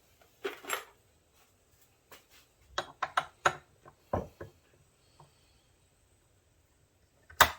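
Sharp metal clicks and clunks in small clusters, with a louder knock near the end: the reassembled Peerless 206 transaxle's gear selector being worked by hand and its parts handled.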